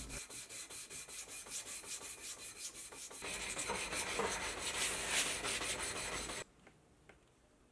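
A mild steel part rubbed back and forth by hand on a sheet of sandpaper laid flat, sanding scratches off its surface: a scratchy rasp of quick strokes, about four a second. About three seconds in the rubbing grows louder and denser, then it cuts off suddenly near the end.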